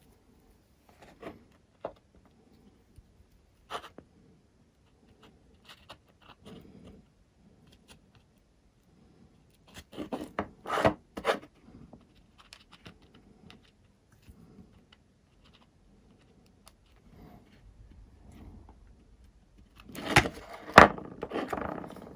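Small hard parts and tools being handled on a workbench: scattered clicks, taps and short scrapes. There is a louder flurry of clacking and rattling about halfway through, and another near the end.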